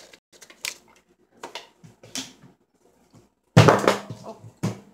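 Kitchen handling noise on a countertop: a few light taps of bowls and utensils, then a louder knock about three and a half seconds in and another shortly after.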